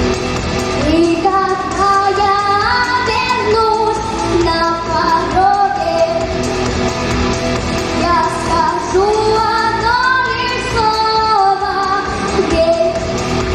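A female voice singing a rock song's melody over a band backing track.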